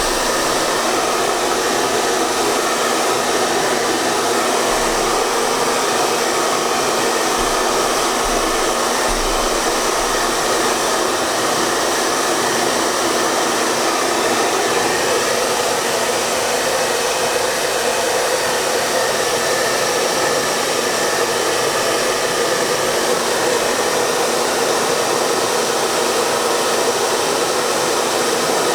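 Hair dryer running steadily: an even rush of blown air with a faint hum in it, unchanging throughout.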